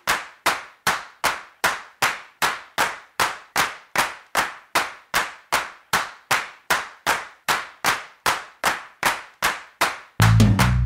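Rock music soundtrack in a sparse passage: a lone clap-like percussive hit repeats evenly about two and a half times a second. The full band comes back in near the end.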